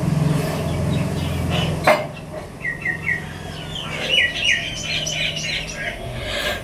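Small birds chirping in short quick series of falling notes, over a steady low hum; a sharp click a little before two seconds in.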